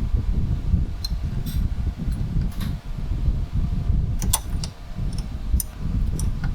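A steady low rumble with scattered light metallic clicks and taps of hand tools, as the AC compressor is worked loose from the engine.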